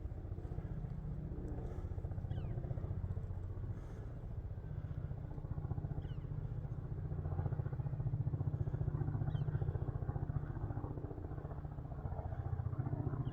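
Steady low rumble of wind buffeting the microphone, swelling for a few seconds in the middle. A small bird gives a short falling chirp every few seconds.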